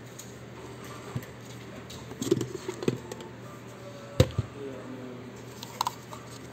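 Plastic parts of a Xiaomi Mi G10 vacuum's filter set, the orange cyclone filter and clear dust cup, knocking and clicking as they are handled and pulled apart. A few scattered knocks, the loudest a sharp one about four seconds in.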